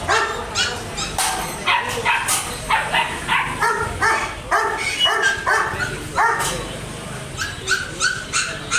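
A dog barking loudly in a rapid run of short barks, about three a second, pausing briefly near the end before barking again.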